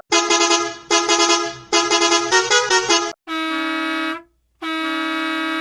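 Volvo bus horn sound effect: three short blasts of several notes, the third shifting in pitch, then two long steady horn blasts with a short gap between them.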